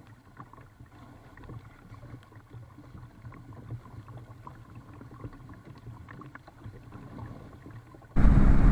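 Faint water sounds around a small paddled boat, with scattered light ticks and knocks. About eight seconds in, a loud steady low rumble with a hum cuts in abruptly.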